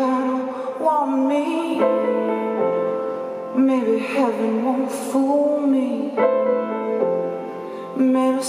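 A woman singing live with long held and sliding notes, accompanying herself on a grand piano.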